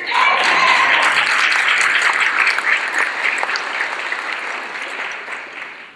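Audience applauding in a large hall, the clapping dying away gradually toward the end.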